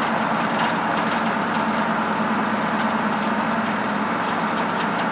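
1971 Ford pickup truck driving at speed under throttle, heard from inside the cab: a steady engine drone over road and wind noise.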